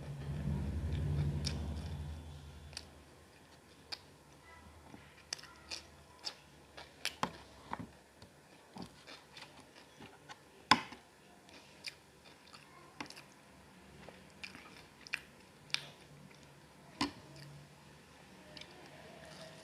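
Close-up chewing and biting on a chicken leg piece: an irregular run of short, sharp, wet clicks and smacks, the loudest about ten seconds in. A low hum sounds in the first two seconds.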